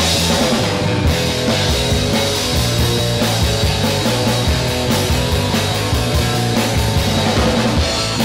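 Rock music soundtrack, playing loudly and without a break, with a busy, changing bass line under it.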